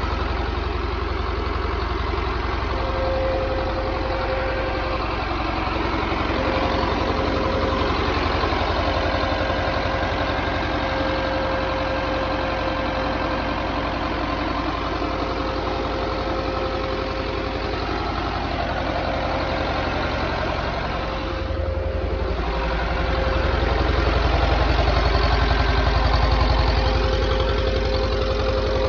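Belarus 250AS tractor's air-cooled two-cylinder diesel engine idling steadily. The sound briefly dips about three-quarters of the way through, then runs a little louder.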